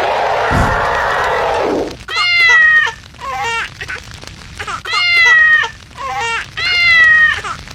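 Cat meowing repeatedly: long drawn-out meows that fall slightly in pitch, alternating with short ones. It is preceded by about two seconds of a loud steady rushing noise at the start.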